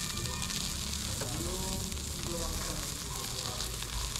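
Skewered chicken butt pieces sizzling on a grill, a steady sizzle.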